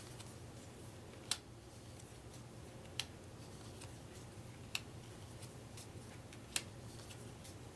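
Playing cards laid down one at a time on a table: four short, sharp card taps spaced about a second and a half to two seconds apart, over a faint steady low hum.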